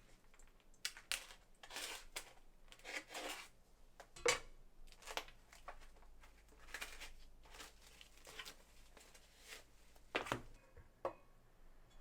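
Kitchen food-preparation handling: irregular rustling and scraping strokes, with a sharper knock about four seconds in and another about ten seconds in.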